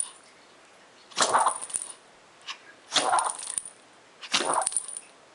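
A small dog sneezing three times in a row, about a second and a half apart, each sneeze a short noisy burst through the nose, one fit of repeated sneezing.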